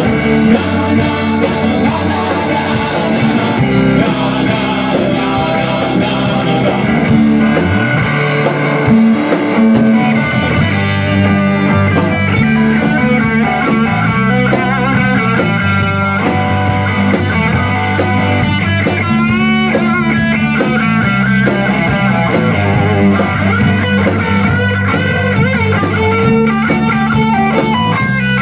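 Live rock band playing an instrumental passage: electric guitar, bass guitar and drum kit. The electric guitar plays a lead line with bent, wavering notes.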